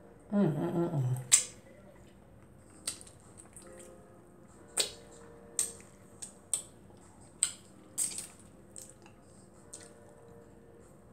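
Close mouth sounds of a person eating barbecued pork ribs by hand: sharp wet smacks and chewing clicks about once a second, with a short hummed 'mmm' falling in pitch about half a second in.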